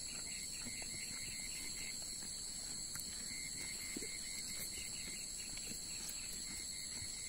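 Steady chorus of insects: several continuous high-pitched trills, with a quieter rapid chirping that comes and goes.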